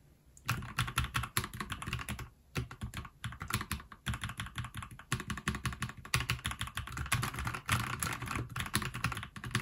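Fast, continuous typing on a NuPhy Halo75 mechanical keyboard, with rapid key clacks starting about half a second in and a few brief pauses.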